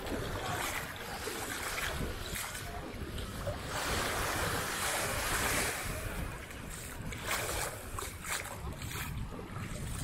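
Sea surf washing in, with one wave swelling up about four seconds in, over wind buffeting the microphone.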